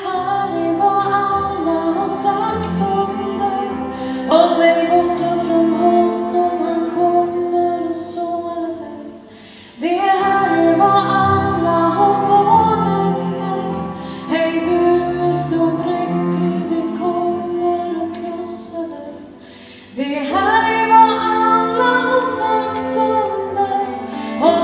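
A woman singing a slow song into a microphone over musical accompaniment, in long held notes and phrases of several seconds; the music falls away briefly twice, about nine and nineteen seconds in.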